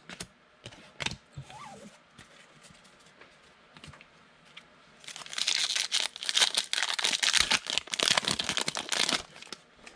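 Foil wrapper of a Panini Prestige football card pack crinkling as it is torn open and the cards are pulled out: about four seconds of dense crinkling starting about five seconds in, after a few light clicks.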